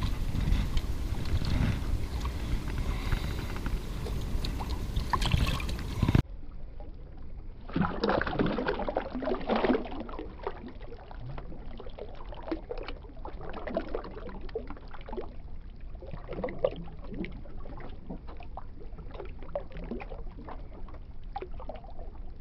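Wind rumbling on the microphone for the first few seconds, then water splashing and lapping in the shallows as a released peacock bass swims off. The loudest splashing comes a couple of seconds after the change, followed by many small irregular splashes and drips.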